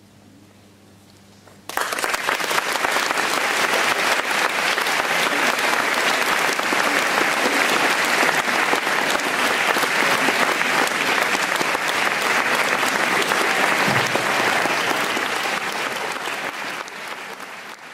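Audience applause breaking out suddenly about two seconds in after a brief hush, holding steady, then tapering off near the end.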